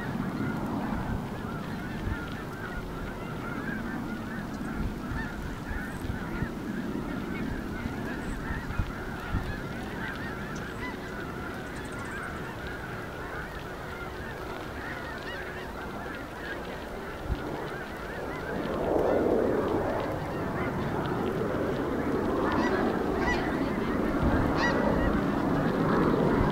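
A large flock of birds calling continuously, many overlapping calls, growing louder from about 19 seconds in.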